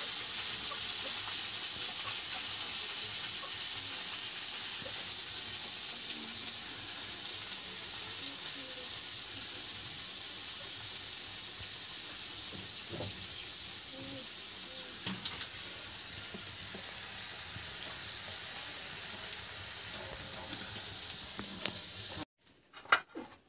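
Small spice-coated fish frying in hot oil on an iron tawa: a steady high sizzle with a few light clicks, easing slowly, then cutting off suddenly near the end.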